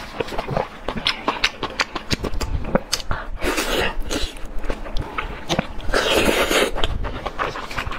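Close-miked eating: wet mouth clicks and smacks of chewing and biting into chili-covered food pulled off skewers, with two longer, noisy sucking slurps about three and a half and six seconds in.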